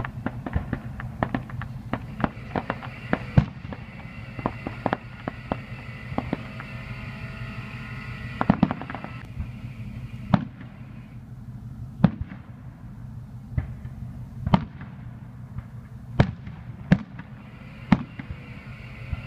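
Aerial fireworks bursting: a quick string of crackling bangs through the first half, then single bangs every second or two.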